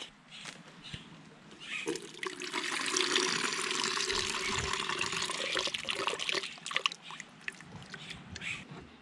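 Coconut water pouring from a freshly opened green coconut into a plastic pitcher: a steady splashing stream that starts about two seconds in and lasts about five seconds, followed by a few light taps.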